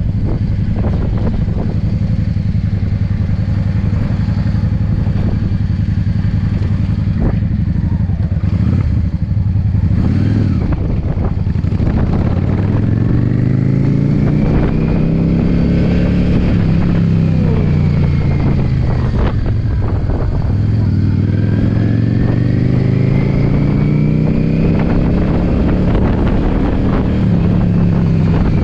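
Yamaha V-Star V-twin cruiser engine running under way. It holds a steady note at first, then from about halfway its pitch rises and falls twice as the bike speeds up and eases off.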